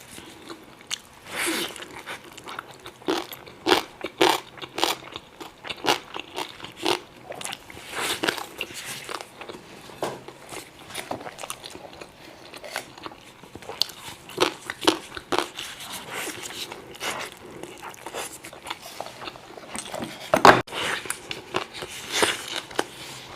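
A person eating close to the microphone: irregular biting and chewing with crisp, crunchy bites, a few a second, one sharp loud bite near the end.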